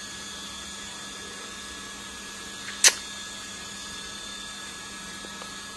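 Quiet room tone with a faint steady hum, broken once, about three seconds in, by a single short, sharp click.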